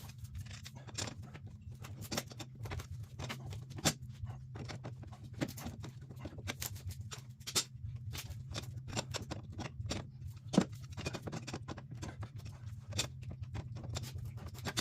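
Irregular metallic clicks, taps and light scraping, several a second, as channel-lock pliers grip and turn the quad's rear axle to take up slack in a loose drive chain; a steady low hum runs underneath.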